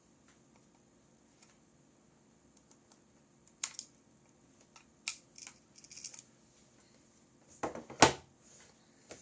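Small hard objects being handled and set down on a workbench: scattered clicks and taps, then two louder knocks in quick succession near the end.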